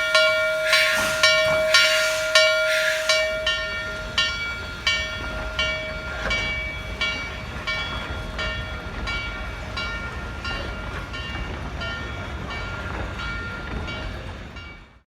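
Steam locomotive bell ringing, struck about twice a second and slowly fading, with three bursts of steam hiss in the first three seconds and a low rumble of the train rolling from about three seconds in. The sound cuts off abruptly near the end.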